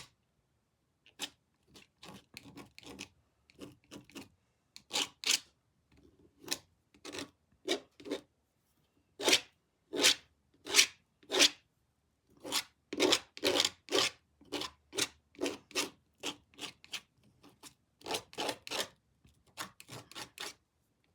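Paint being scraped across the painted face of a jigsaw puzzle in short, separate rasping strokes, often one to two a second, at an uneven pace.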